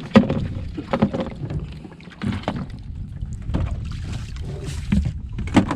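Water moving against the hull of a small outrigger boat, with scattered knocks and clatter of fishing gear against the boat.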